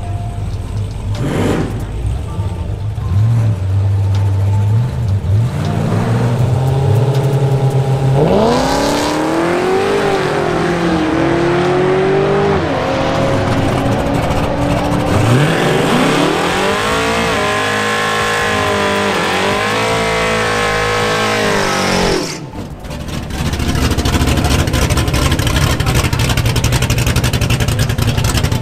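Drag-racing car engines idling and blipping at the start line, then a car launching at full throttle, its engine pitch climbing and dropping again and again as it runs through the gears. About 22 s in the sound breaks off suddenly and is followed by a steady engine rumble.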